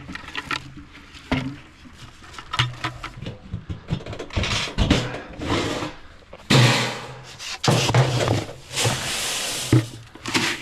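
Handling noises: irregular knocks and clicks with scraping and bursts of rustling.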